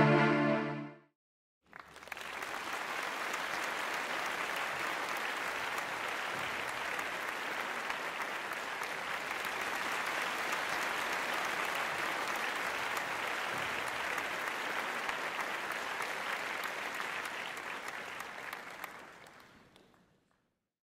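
Music fades out in the first second; then, after a brief gap, many hands clap in steady, dense applause that fades away near the end.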